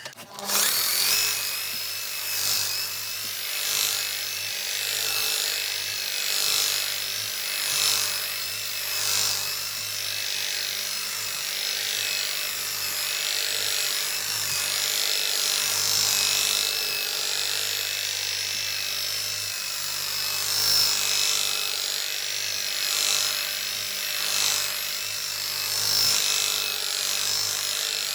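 Handheld electric power tool, such as a sander or buffer, running steadily on the tabletop. Its sound swells and eases about every one and a half seconds.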